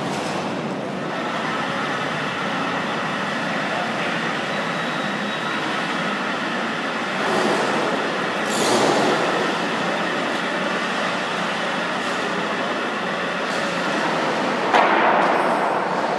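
Steady, fairly loud din of a large indoor exhibition hall, a noisy hum of background activity with no clear voices, swelling briefly about halfway through and jumping louder with a sudden knock near the end.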